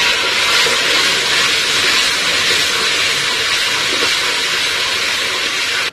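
Water poured into hot oil with browned onions and garlic in an aluminium pressure cooker, hissing and sizzling loudly as it flashes into steam. The hiss holds steady, then cuts off suddenly at the end.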